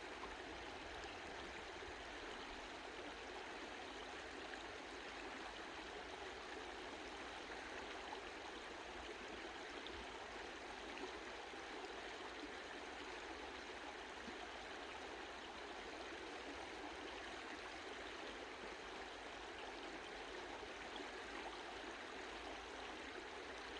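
Mountain stream flowing over rocks, a steady, gentle rush of water.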